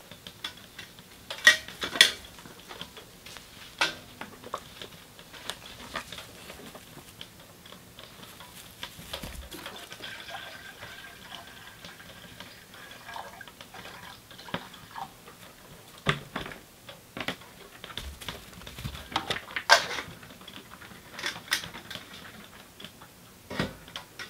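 Metal camp cookware clinking and clanking as a kettle and pot are handled on a wood stove, in scattered sharp knocks, with a stretch of water being poured.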